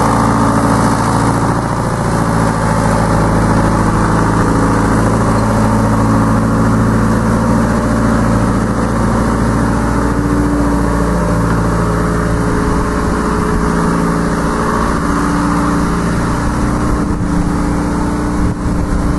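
Diesel engine of a 1974 Hymac 570 backhoe digger running steadily as the machine drives off, its pitch shifting slightly.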